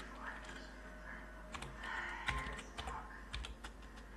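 Typing on a computer keyboard: faint, irregular key clicks as an email address is typed out.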